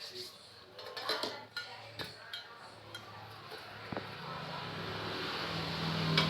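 Scattered light clicks and knocks of medical equipment being handled and set out, with a low steady hum that grows louder over the last couple of seconds.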